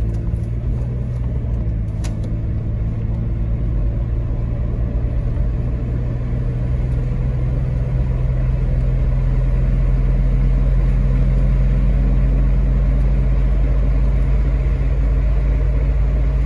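Inside the cabin of a 1999 Jeep Cherokee XJ with its 4.0-litre straight-six pulling up a hill: a steady low engine and road hum that grows a little louder over the first ten seconds or so. There is a short click about two seconds in.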